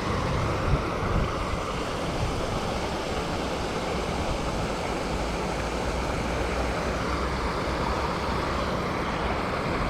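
Steady rushing of creek water flowing.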